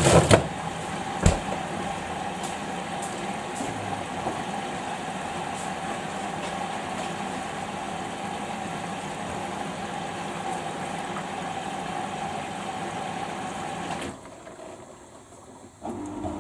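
Samsung washing machine running partway through a quick wash cycle: a steady mechanical whine with a couple of knocks in the first second or so. The whine cuts out about fourteen seconds in, and a lower hum starts near the end.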